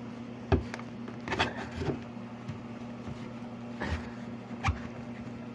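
Hands fitting a replacement filter into an oxygen concentrator: several sharp plastic knocks and clicks as the filter is pushed and seated in its housing, over a steady low hum.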